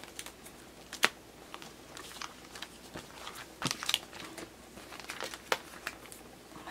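Clear plastic binder pocket pages and card sleeves crinkling and rustling as photocards are handled and a binder page is turned. There is a sharp click about a second in and a cluster of crackles a little past the middle.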